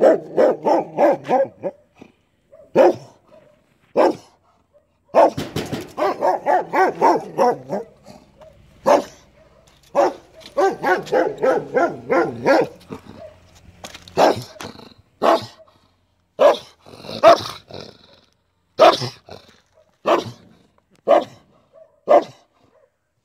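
A dog barking aggressively: fast runs of several barks a second, then single barks about a second apart through the second half.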